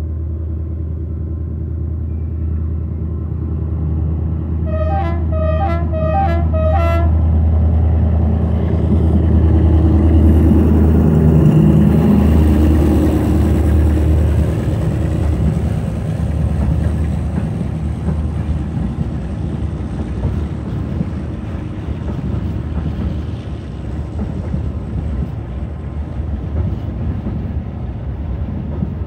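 TCDD DE 24000-class diesel-electric freight locomotive approaching with its diesel engine running, giving a quick series of about five short horn toots about five seconds in. The engine is loudest as the locomotive passes, and then a long string of open-top freight wagons rumbles and clatters by on the rails.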